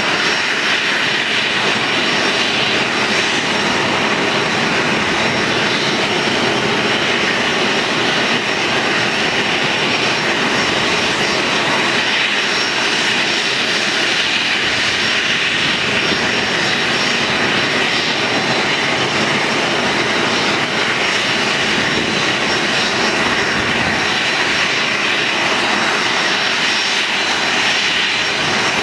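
Boeing 737-300's CFM56-3 turbofan engines running steadily at ground idle, a constant high whine over a loud rushing noise with no spool-up or change in pitch.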